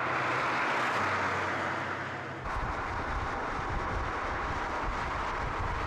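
Volkswagen Golf R estate's turbocharged 2.0-litre four-cylinder driving hard on track, with engine and tyre noise as the car goes by. The sound changes abruptly about two and a half seconds in to a lower rumble mixed with wind on the microphone.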